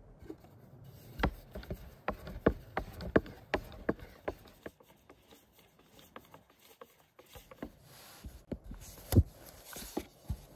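Long wooden rolling pin rolling dough thin on a wooden board, making a run of irregular wooden knocks and taps. A soft hiss comes in late, and the loudest knock falls about nine seconds in.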